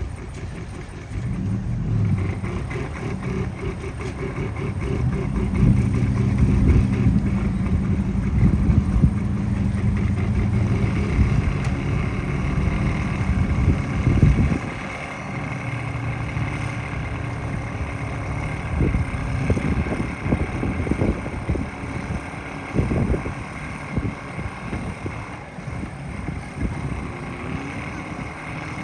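An engine running with a steady low hum that grows louder, then drops away abruptly about halfway through. After that comes quieter engine sound with a few knocks.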